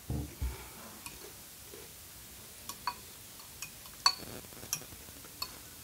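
Chewing on fried calamari at the start, then a metal fork clinking several times against a glass bowl of noodles, in short sharp clicks spread over the last few seconds.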